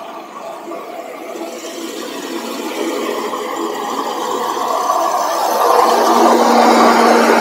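Engine of a road-paving machine and the truck beside it running, growing steadily louder as the motorcycle rides up alongside them, mixed with the rattle of the motorcycle on gravel. A steady hum comes in about six seconds in as the machine is passed.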